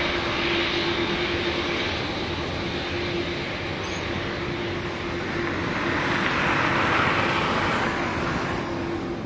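Boeing 747-8 freighter's GEnx turbofan engines running at low taxi power: a steady jet roar with a constant hum underneath, swelling louder and hissier about seven seconds in.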